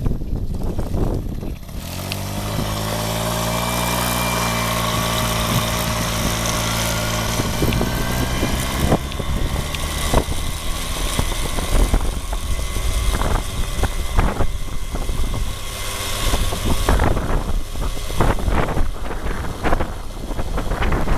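Suzuki FZ50 moped's small two-stroke engine running under way, its pitch rising gently as the moped picks up speed. From about a third of the way in, wind buffeting on the microphone and jolts over the rough road break up the engine note.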